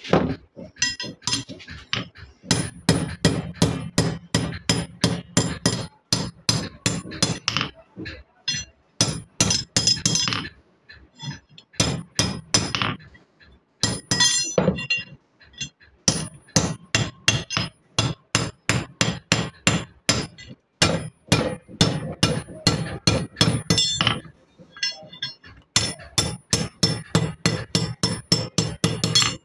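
Steel hammer striking a blacksmith tong's iron handle against a small steel anvil block, metal on metal. The strikes come in quick runs of about four a second with short pauses between runs, each with a high ring.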